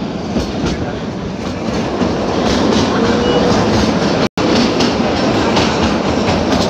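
Narrow-gauge toy train running on the rails, heard from a coach window: steady rumble of wheels on track with irregular rail clatter. The sound drops out abruptly for a moment a little over four seconds in.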